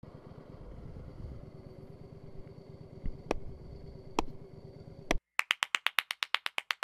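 Faint low rumble of a motorcycle engine idling, with two sharp clicks. After a sharp click and a brief silence comes a fast, even run of sharp ticks, about eight a second, from a cartoon sound effect.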